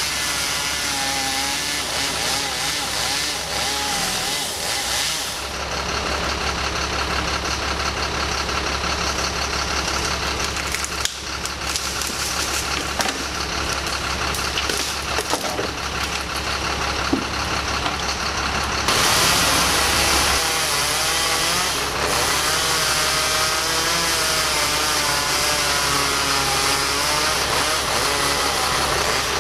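Bucket truck's engine running steadily at idle, with a wavering higher tone over it; about two-thirds of the way through the sound turns brighter and hissier.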